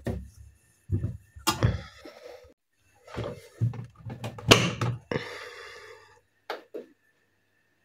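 Bedding being pushed into the drum of a front-loading washing machine with soft thumps and rustling, then the glass door shut with a sharp thunk about four and a half seconds in. Near the end, two short clicks from the machine's control buttons.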